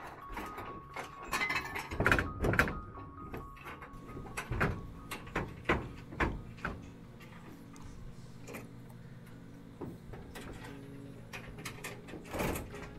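Irregular metallic knocks, clanks and scrapes of aluminium solar mounting rails and panel frames being handled and set in place on a metal roof. They come in clusters: a few seconds in, again around the middle, and once near the end.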